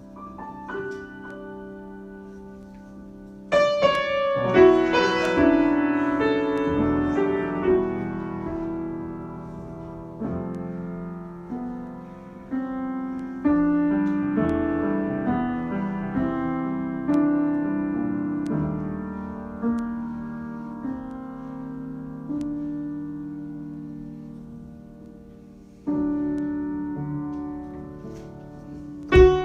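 Solo piano improvisation. It opens softly, a loud chord strikes about three and a half seconds in, and phrases of ringing notes follow that swell and fade, with new accented chords near the end.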